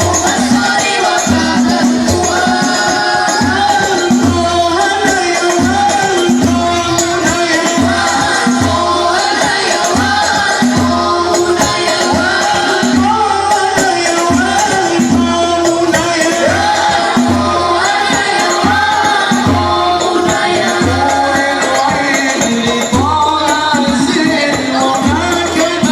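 Banjari (hadrah) ensemble performing: voices singing a devotional sholawat melody over a steady, driving rhythm of hand-struck rebana frame drums with deep bass strokes.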